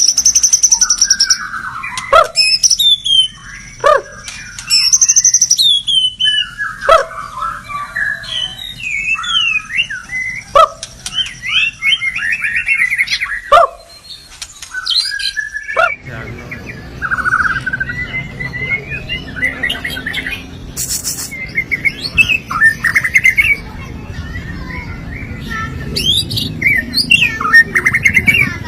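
White-rumped shama (murai batu) singing a loud, varied song of whistles, trills and fast chattering phrases, with sharp downward-swept notes every two to three seconds in the first half. About sixteen seconds in, it changes to a quieter, busier song over a steady background hum.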